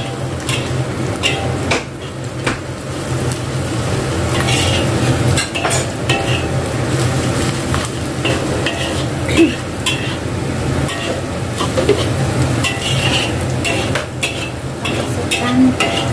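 Chopped shallots and garlic sizzling in oil in a black wok, with a metal spatula scraping and tapping the pan as they are stirred.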